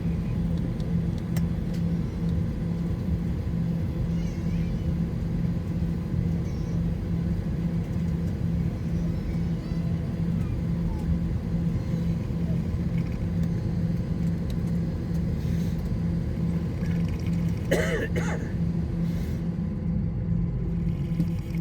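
Steady low drone and hum inside an Airbus A321 cabin. A short human vocal sound, such as a cough, comes about eighteen seconds in.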